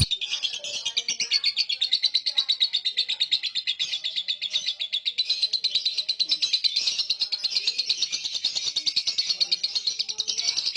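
Lovebird in a long 'ngekek' bout: a rapid, unbroken chattering trill of many short high notes a second, kept up without a pause.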